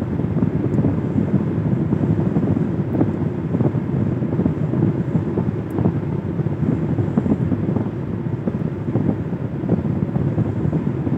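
Steady low rumble of a car driving at road speed, heard from inside the cabin: tyre and wind noise with no let-up.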